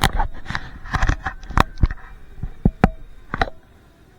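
A rapid, irregular series of sharp knocks and clatters, about a dozen in three and a half seconds, stopping shortly before the end.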